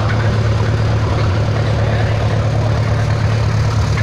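An engine running steadily at idle, an even low hum with no change in speed.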